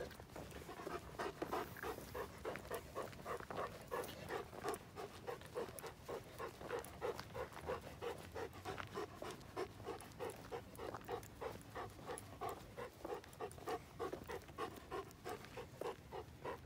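A large, 90-pound dog panting steadily, quick even breaths at about three a second.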